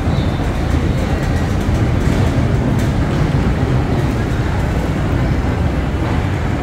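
Steady low rumble of an Airbus A321neo heard from inside its passenger cabin, with a few faint rattles about two to three seconds in.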